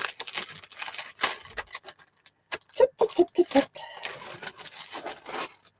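Rustling and crinkling of packaging as a 12 by 12 pad of patterned paper is worked free, in quick irregular crackles and scrapes.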